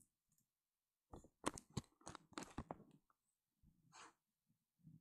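Faint handling noises from a large helium balloon, a quick cluster of brief rubbing and crackling sounds, then one short breathy inhalation about four seconds in as helium is drawn from the balloon's neck.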